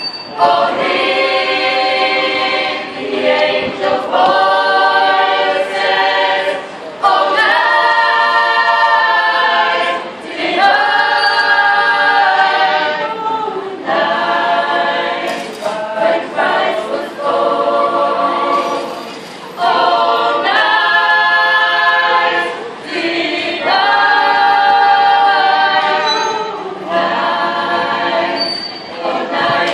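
Gospel choir singing in chords, in phrases of a few seconds each with short breaths between them.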